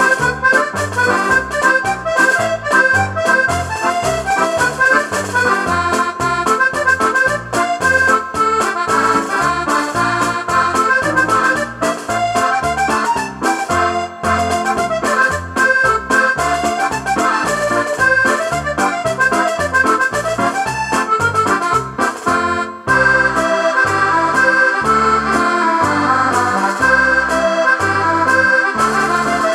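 Scottish country dance music led by accordion, with a steady bass beat under the melody. About 23 seconds in it breaks off briefly and the medley moves into a new tune.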